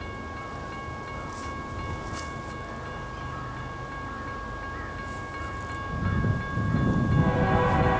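Faint steady high tones over a low rumble, then the rumble of an approaching GE ES44AC diesel locomotive swells about six seconds in. The locomotive's horn sounds a loud chord near the end.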